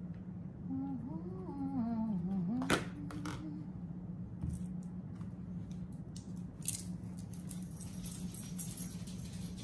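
Quiet kitchen handling over a steady low electrical hum: a plastic food container with a metal spoon in it is set down on the table with a sharp click about three seconds in. A low, wavering, hum-like voice sounds during the first few seconds.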